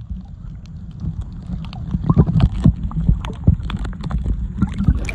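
Muffled sound through a camera held underwater while snorkelling: a steady low rumble of water with scattered gurgles and knocks, busier from about two seconds in.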